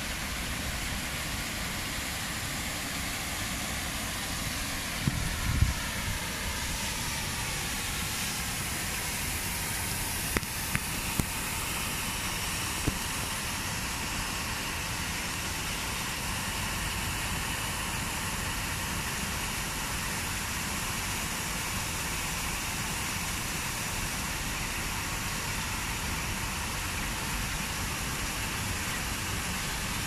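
Steady rush of rain and falling water from a small waterfall into a pond, an even hiss with no pauses. A few louder knocks come about five seconds in, and single sharp clicks a few seconds later.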